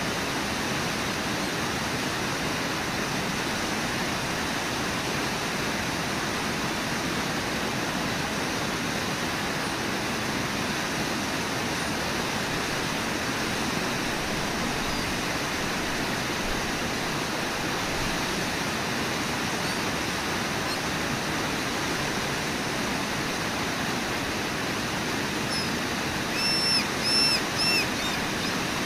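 Steady rush of whitewater river rapids. About two seconds before the end, four short high-pitched calls sound in quick succession over the water.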